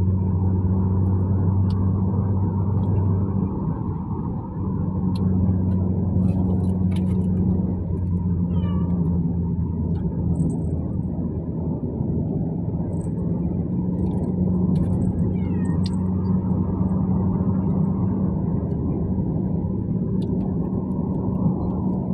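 Steady car cabin drone of engine and road noise, with a kitten giving two short falling meows, one about a third of the way in and another a little past halfway.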